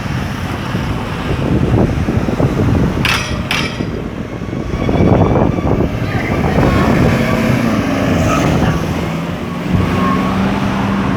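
City street traffic: vehicles and buses running and passing with a steady low rumble, two short hisses about three seconds in, and an engine humming steadily from about seven to ten seconds.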